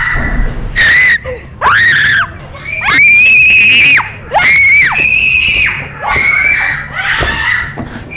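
Girls screaming in a string of high-pitched, playful shrieks, about seven of them, the longest held for about a second near the middle.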